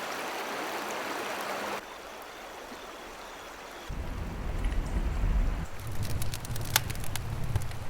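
Flowing river water, an even rushing hiss, cut off abruptly about two seconds in. A quieter hiss follows, then an uneven low rumble of wind on the microphone with a few sharp clicks.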